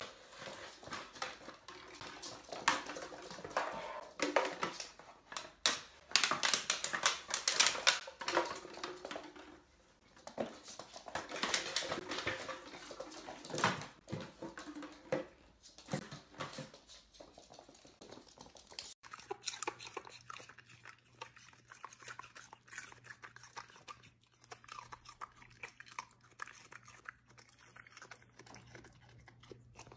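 Dachshund puppy playing with an empty plastic water bottle on a wood floor: irregular crackling and knocking of the bottle, mixed with the puppy's own small noises. About two-thirds in the sound drops to a quieter scene with a steady low hum and faint ticks.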